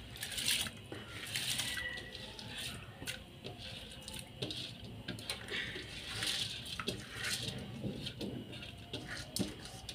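Soaked rice being tipped and scraped by hand from a steel bowl into a pot of hot water, with uneven splashing and a few light clicks of the bowl against the pot.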